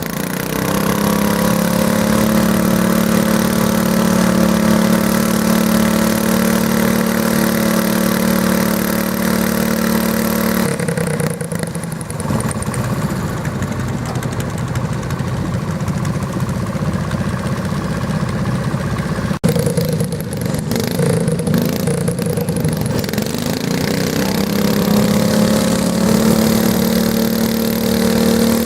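Garden pulling tractor's engine running hard at a steady high pitch. About ten seconds in, the steady note gives way to a rougher, unpitched engine sound. Near the end a steady note builds up again.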